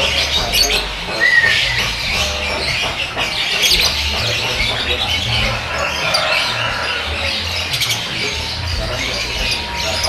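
Lovebirds chattering and squawking, a dense run of overlapping high-pitched calls and short chirps.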